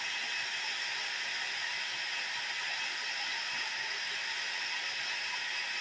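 Hair dryer blowing steadily, drying a dove's feathers after its bath: an even, unbroken rushing hiss.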